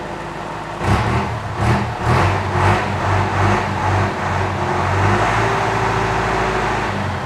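Ford F1000 diesel engine revved: a few quick throttle blips, then held at raised revs for a couple of seconds before easing back near the end.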